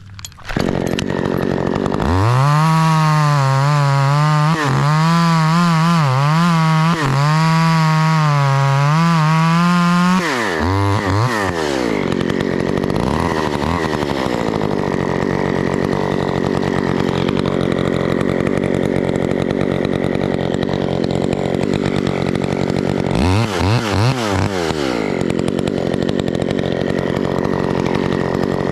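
Chainsaw engine at full throttle, revs wavering under load as it cuts into the trunk for about ten seconds. The revs then fall to a lower steady idle, rise briefly about two-thirds of the way through, and pick up again at the end.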